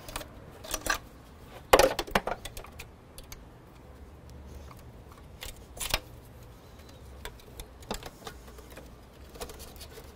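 Irregular light clicks and knocks as the Mk4 Golf's spark plug wires and their rubber boots are tugged loose and handled behind the intake manifold, with a sharper knock just under two seconds in and another about six seconds in.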